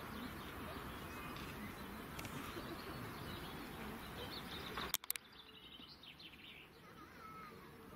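Small birds chirping over a steady outdoor background hiss. About five seconds in there is a sharp click, after which the background drops away and a few short chirps and whistled glides stand out more clearly.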